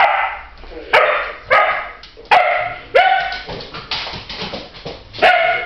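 Dogs barking during play between an Akita puppy and a Cocker Spaniel: about five short, sharp, high-pitched barks at uneven intervals, with a pause of a second or two near the end.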